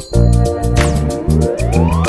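Background music: an electronic track with a bass line and steady beat, and a synth sweep rising in pitch from about half a second in.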